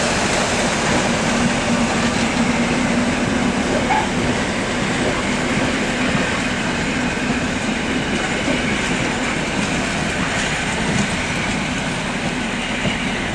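Regional passenger train running out of the station, with a steady rolling noise and a low hum, easing slightly in level towards the end.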